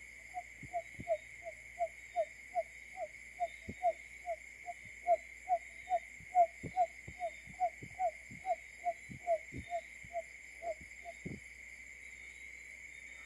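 Barred buttonquail calling: a regular series of short, low hooting notes, each sliding slightly downward, about two and a half a second, stopping about 11 seconds in. A steady high hiss runs underneath.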